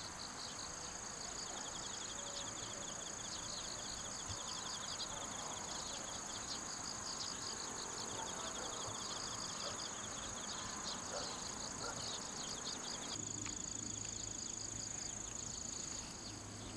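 Singing insects in summer grass: a steady high-pitched trill with rapid trains of chirps over it, the chirping thinning out about three-quarters of the way through.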